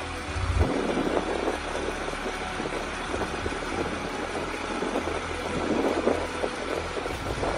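Diesel engines of heavy rally trucks running with a steady low rumble, one truck towing another out of soft sand on a strap, with irregular surges in the sound.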